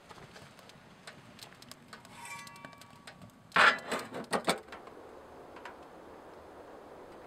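Dry twigs crackling as they burn in a small metal wood stove, then a quick series of loud metal clanks about three and a half seconds in as the stove door is shut.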